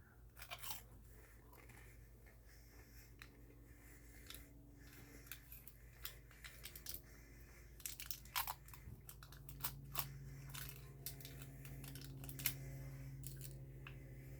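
Close-miked chewing and crunching of McDonald's fast food, with many irregular sharp crackles over a steady low hum.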